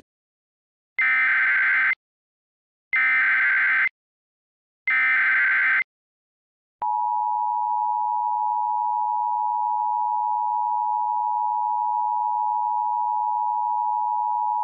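Emergency Alert System tones: three one-second bursts of SAME header data screech, then the steady two-tone EAS attention signal, which comes in just before the halfway point and holds to the end. The header encodes a civil danger warning.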